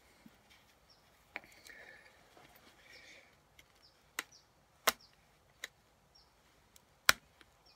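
Pressure flaking a stone piece held in a leather pad: a handful of sharp clicks spread across several seconds as the flaker's tip pops flakes off the edge, with faint scraping between them.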